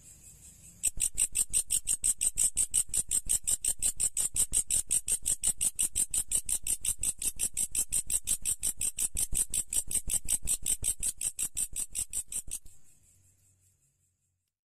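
Large green grasshopper stridulating: a loud, high-pitched, rapid and even pulsed chirping that starts suddenly about a second in and stops abruptly near the end.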